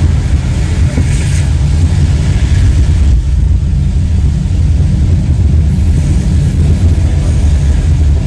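Steady low rumble of a car and its tyres on a wet road, heard from inside the moving car, with a hiss over it that eases about three seconds in.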